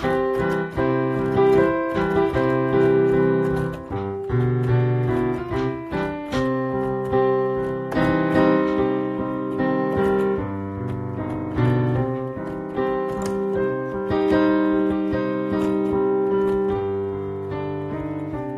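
Piano played with both hands: a steady flow of struck notes over sustained chords, without singing.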